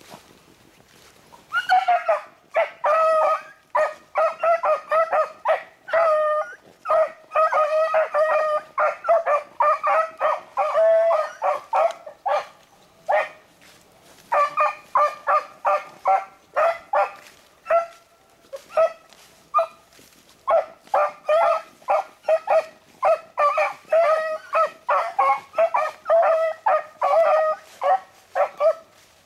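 Beagles baying, quick repeated barks and yelps as they run a rabbit's scent trail. The baying starts about a second and a half in and carries on, thinning briefly near the middle.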